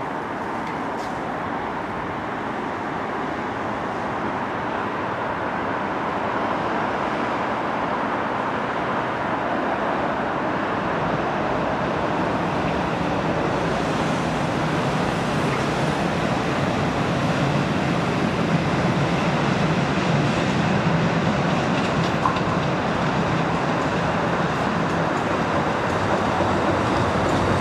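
Tyne and Wear Metro Metrocar (Class 994) approaching and running into the station, its steady wheel-on-rail and traction noise growing gradually louder as it nears.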